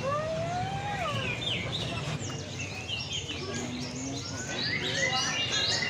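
Many small caged birds chirping, the chirps growing denser and louder near the end, over a steady low background hum.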